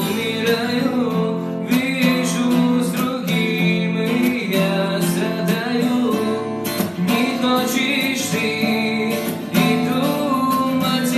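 Acoustic guitar playing the song's melody over rhythmically strummed chords.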